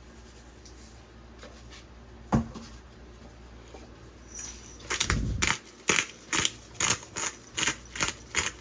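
Hand-twisted spice grinder cracking seasoning in short, evenly spaced crunching strokes, about two or three a second, starting about halfway through. A single sharp click comes a little earlier.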